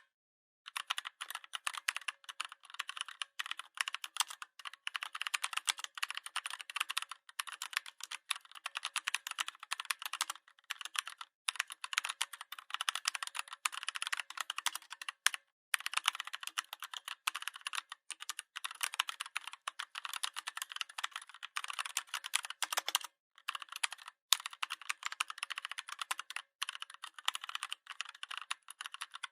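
Typing on a computer keyboard: quick, steady runs of keystrokes, with a few short pauses, one about half a second in and others near the middle and later on.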